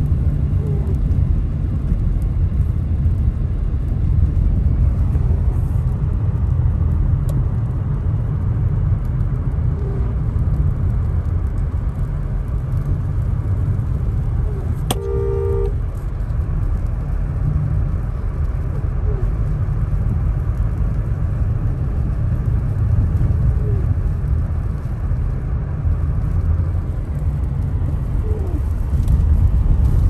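Inside a car driving on a snow-packed road: a steady low rumble of engine and tyres. About halfway through there is a click and a short electronic beep.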